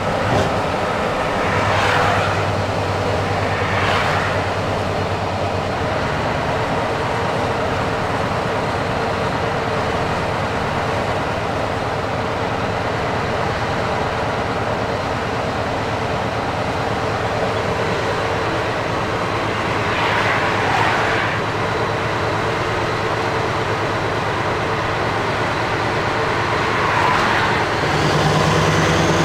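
Scania R500 V8 diesel truck on the move, heard from inside the cab: a steady engine drone under road and wind noise, with a few brief whooshes. Near the end the engine note steps up and gets louder.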